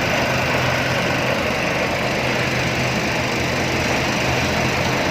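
Breakfast cereal production line machinery running with a steady mechanical drone and hum.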